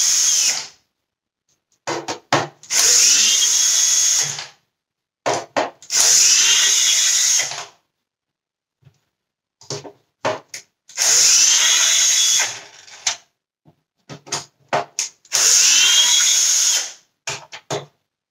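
Cordless drill-driver backing long Torx screws out of a Dyson vacuum's plastic cyclone assembly. It runs in four bursts of about two seconds each, with pauses between. Light clicks and taps of handling come in the gaps.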